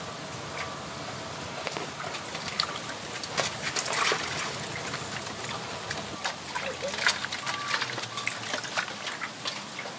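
Hands splashing and sloshing water in an aluminium basin while washing raw pieces of shark, in irregular splashes and trickles.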